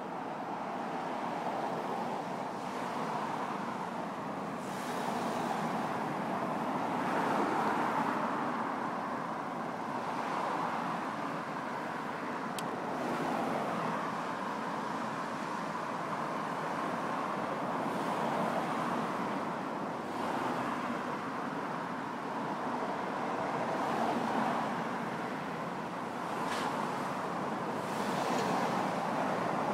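Steady road traffic noise, cars passing, swelling and fading every few seconds.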